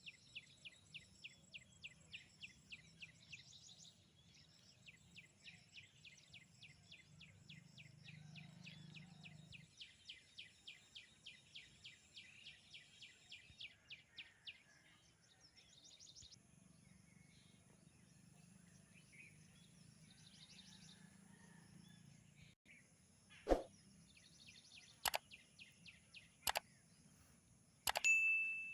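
A bird chirping over and over in a steady rhythm, about two to three short high calls a second, then falling silent partway through. A few sharp clicks follow near the end.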